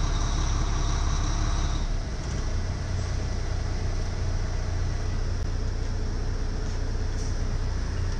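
Volvo semi truck's diesel engine idling steadily, heard from inside the cab; the low hum shifts slightly about two seconds in.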